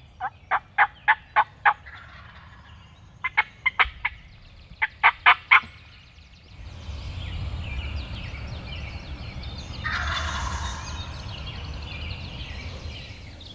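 Wild turkey gobbler gobbling three times in quick succession, each gobble a fast run of loud rattling pulses. After that, songbirds chirp steadily over a low rumble.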